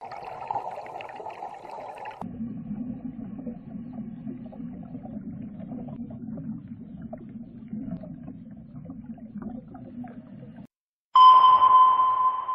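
Muffled, low underwater-style ambience with faint crackle, then near the end, after a brief drop-out, a loud sonar-style ping: one high tone that starts suddenly and rings on, slowly fading.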